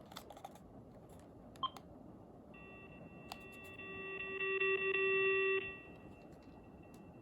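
AT&T cordless phone handset sounding through its speaker: a short beep, then from about two and a half seconds a steady high-pitched whine with a lower tone under it. The lower tone grows louder and cuts off near six seconds, and the faint whine carries on. It sounds pretty terrible, a sign of a lot of radio interference on the handset.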